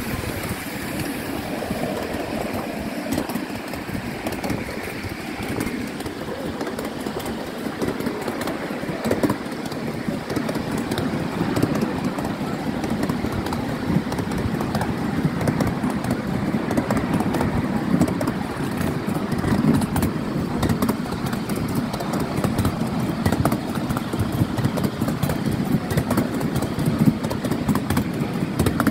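Miniature steam railway train running along its track, heard from a passenger car: a steady rumble of wheels on the rails with frequent quick clicks, getting a little louder after about ten seconds as it picks up speed.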